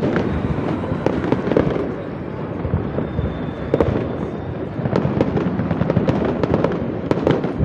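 Aerial fireworks display: shell after shell bursting in a dense, continuous barrage of bangs and crackle over a low rumble.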